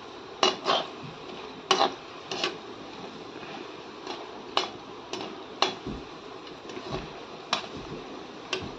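Pakoras frying in hot oil in a karahi, a steady sizzle, with a metal slotted spatula knocking and scraping against the pan in irregular clicks as the pakoras are turned.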